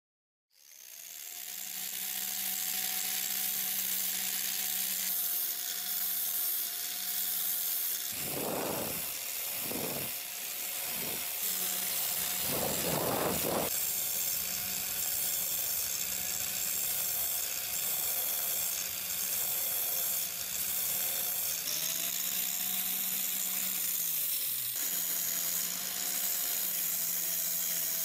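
Angle grinder with a flap disc running steadily against the steel head of a hammer, sanding and polishing the metal. It starts about half a second in, has a few rougher grinding bursts in the middle, and the motor's pitch sags twice near the end.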